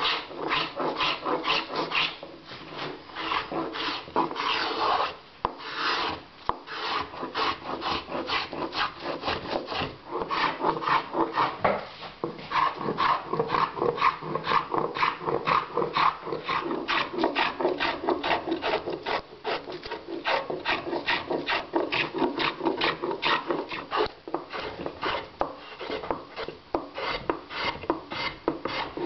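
Travisher cutting shavings from a wooden chair seat in quick, rhythmic strokes, about three a second, each a short dry scraping cut.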